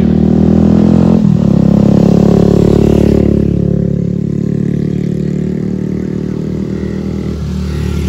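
A motor vehicle's engine running close by, its pitch shifting about a second in, loudest for the first three seconds and then slowly fading.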